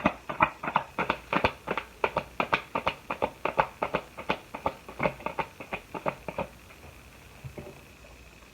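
Tarot cards being handled by hand: a quick run of soft taps and slaps, about five a second, that stops about six and a half seconds in.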